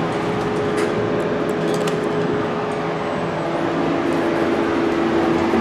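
Steady noise of a traction elevator car in motion, heard from inside the cab with its loud ventilation fan running. Through it runs a hum whose tone steps down in pitch about four seconds in.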